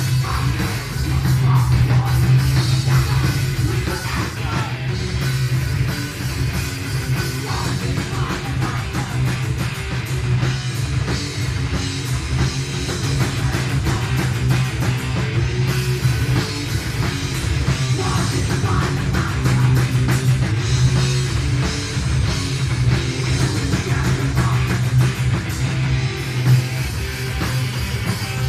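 Live heavy metal band playing: distorted electric guitars and a drum kit at full volume, recorded through a mobile phone's microphone with a heavy, boomy low end.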